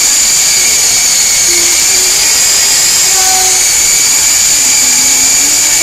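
S33 remote-control toy helicopter in flight: its small electric motors and spinning rotors make a steady, high-pitched whine over a rushing hiss.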